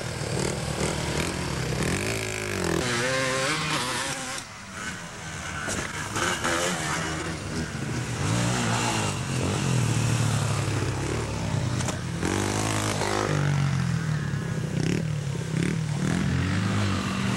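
Dirt bike engine running and revving as it is ridden along a trail, its pitch rising and falling again and again.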